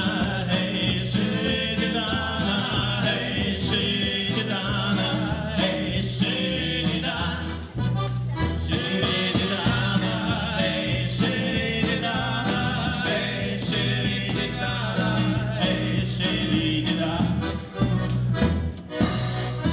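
Live Ukrainian folk band playing: men singing over accordion, acoustic guitar and electric bass, with a large bass drum and its mounted cymbal keeping a steady beat.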